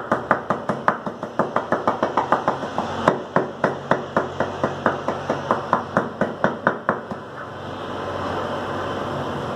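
Heavy meat chopper striking boneless chicken on a babool-wood chopping block, mincing it into keema with fast, even chops about four a second. The chopping stops about seven seconds in, and a steady rushing noise takes over.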